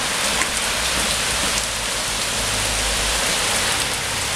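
Steady rain falling on hard wet paving, a dense even hiss of drops.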